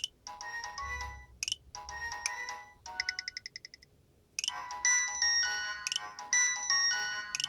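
Nokia 6230b polyphonic ringtone melodies. Chiming note phrases end in a quick run of rapidly repeated high notes about three seconds in. After a short pause a new, louder tune starts.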